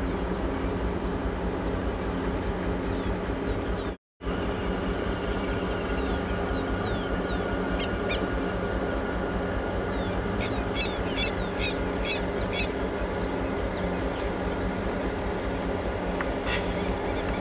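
Birds calling with short, quick falling chirps, thickest in a run of rapid repeated notes past the middle. Under them runs a steady high insect drone and a low steady hum. The sound cuts out for a split second about four seconds in.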